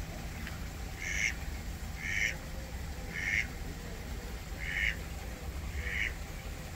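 A duck quacking five times, each call short and a second or so apart, over a steady low background rumble.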